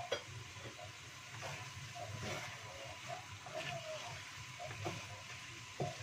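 Wooden spatula stirring and scraping diced food around a wok over low sizzling, with a few light knocks of the spatula against the pan.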